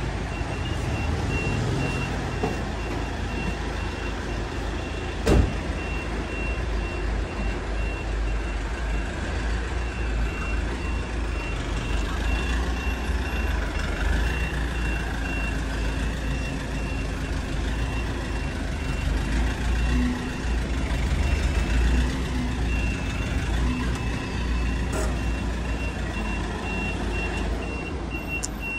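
A delivery box truck's reversing alarm beeping over and over, a short high tone repeated, over the low rumble of its running engine. A single sharp knock sounds about five seconds in.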